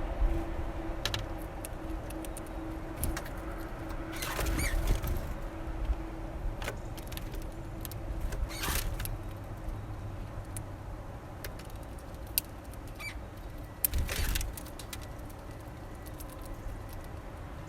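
Small birds at a feeder: scattered sharp taps and three short flutter-like bursts, over a low steady rumble with a hum that fades away in the first several seconds.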